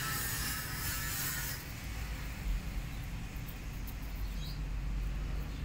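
Outdoor background noise: a steady low rumble, with a hiss that fades out about a second and a half in.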